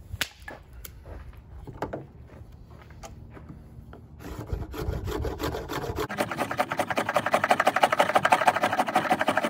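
Knife blade scraping down a wooden stick held upright on a table, shaving off fine wood scrapings for a tinder bundle. A few scattered knocks come first; about halfway through the scraping starts, and it turns into fast, even short strokes, several a second, getting louder.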